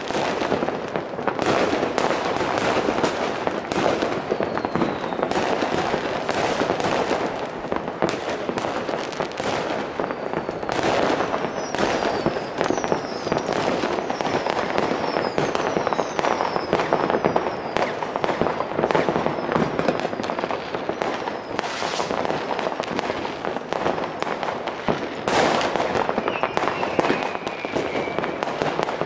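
New Year's Eve fireworks and firecrackers going off all around in a dense, unbroken crackle of bangs. Short high falling whistles cut through in the middle, and a longer, lower falling whistle comes near the end.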